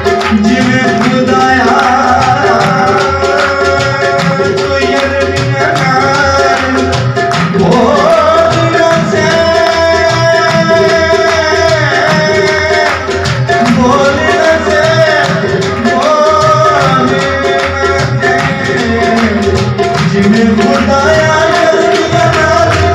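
A masihi geet (Christian devotional song) performed live: a man singing over a harmonium's held drone, with tabla keeping the beat.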